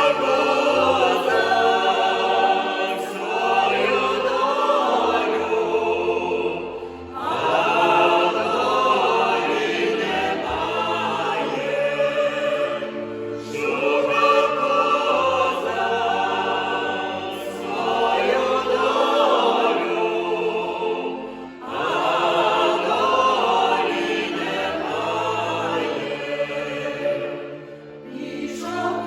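Folk choir singing a Ukrainian folk song, several voices together in long sung phrases with brief breaks for breath between them.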